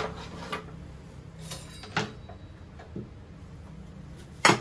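Kitchen handling clatter: a few light knocks and clicks as utensils and a chopping board are picked up and set down on the counter. A sharp knife knock on the chopping board near the end is the loudest.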